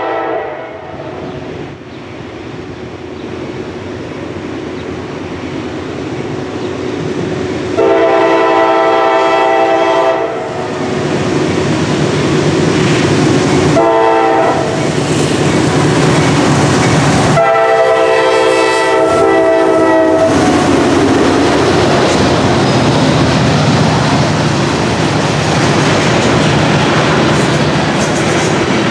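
Horn of a Norfolk Southern GE AC44C6M diesel locomotive: the end of one long blast, then a long, a short and a long blast, the grade-crossing signal, as the grain train draws near. The locomotives' rumble grows and passes, then loaded covered hopper cars roll by with a steady clatter of wheels over the rail joints.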